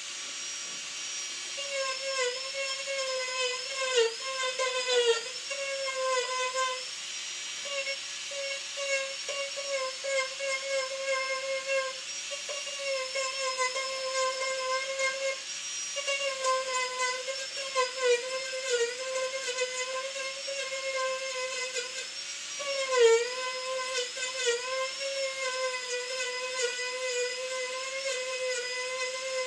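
Marathon micro motor handpiece spinning a small carving burr against wood: a steady high-pitched whine with overtones, its pitch dipping briefly a few times as the burr bears into the wood, most deeply about 23 seconds in.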